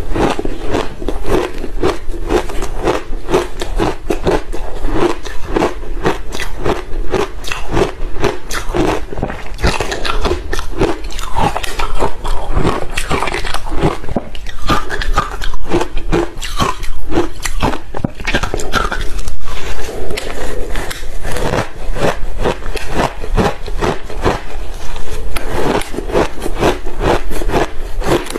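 Close-miked biting and chewing of soft ice balls coated in green barley powder: a dense run of soft crunching and crackling as the ice is bitten and crushed in the mouth.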